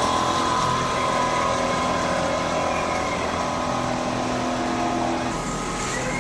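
Richpeace single-needle quilting machine running steadily, a mechanical hum with a few steady tones. The sound changes abruptly about five seconds in.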